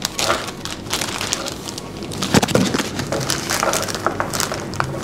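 Clear plastic bag crinkling and rustling as it is handled, an irregular run of crackles.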